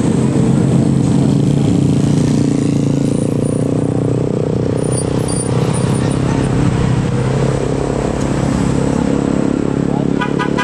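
Heavy diesel engine of a passing tour bus running loud and steady. Near the end, a rapid run of short musical horn notes begins: the bus's telolet horn.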